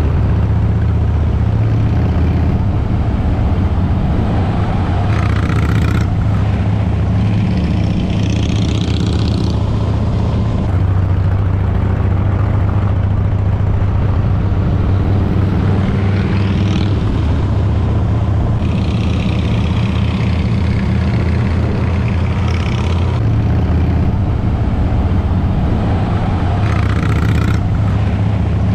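Harley-Davidson V-twin motorcycle engine running steadily under way, a low rumble with its pitch rising several times as the rider opens the throttle.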